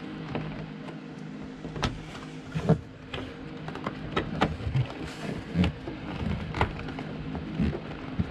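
Hands working a wire down along plastic cowl trim under a hood: irregular light clicks and knocks of wire and plastic, about one a second, over a steady low hum.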